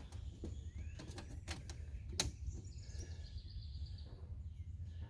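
Faint scattered clicks and knocks over a steady low hum, with faint bird chirps.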